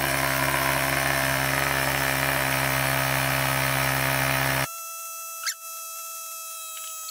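Cordless handheld tire inflator's compressor running steadily as it pumps air into a tubeless tire. About four and a half seconds in it cuts off abruptly, giving way to quieter steady high tones.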